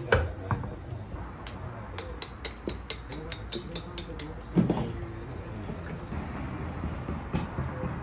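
Glassware and crockery clinking and knocking at a café counter. There is a run of light, evenly spaced ticks at about four a second in the middle, and a heavier knock about four and a half seconds in.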